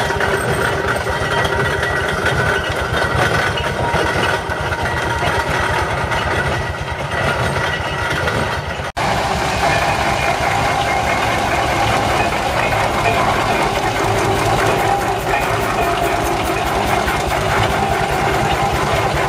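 Steam engines running past on the road: a steam road roller, then, after a break about halfway through, a traction engine, each with the steady, rapid mechanical beat of its engine and motion.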